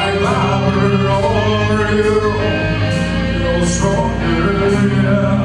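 Live rock band music: a male singer sings over electric guitars, with steady cymbal beats.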